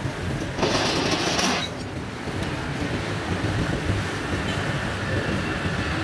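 Three-roll sheet-metal rolling machine turning, its steel rollers rumbling as a flat steel sheet is drawn through and bent into a curve. A louder rushing, scraping noise lasts about a second near the start.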